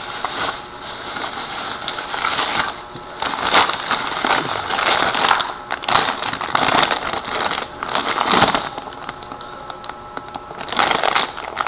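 Thin plastic bags rustling and crinkling in the hands as a red plastic carrier bag and a clear plastic accessory packet are unwrapped. The sound comes in irregular bursts, with a quieter stretch near the end.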